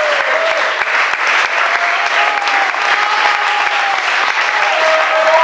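Audience applauding steadily, with voices in the crowd calling out over the clapping.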